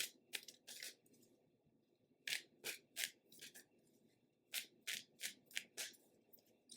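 Tarot cards being handled: a series of short, crisp snaps and flicks in three quick clusters.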